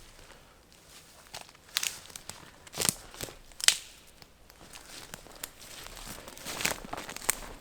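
Irregular crinkling and crackling with a few sharper snaps, the loudest about two, three and three and a half seconds in.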